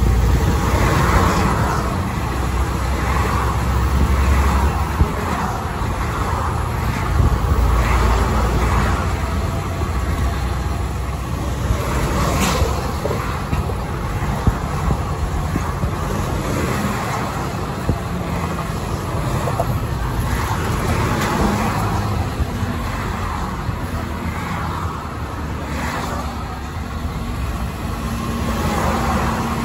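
Car driving at highway speed, heard from inside the vehicle: steady tyre and road noise on concrete pavement over a low engine rumble. The noise swells and fades every few seconds, and there is one brief sharp click about twelve seconds in.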